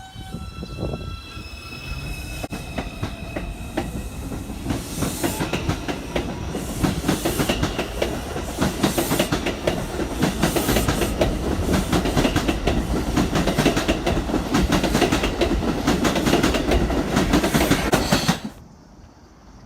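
R142 subway train pulling out, its motors whining in steady tones that step upward in pitch as it starts off. Then the wheels clack rapidly over the rail joints with a growing rumble, louder as the train speeds up, and the sound stops suddenly near the end.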